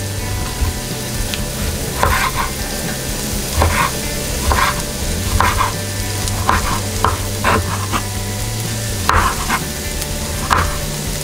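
Chef's knife slicing through tomatoes onto a wooden cutting board: about ten short, irregular cuts, starting about two seconds in. Under them, a pan sizzles steadily with food frying.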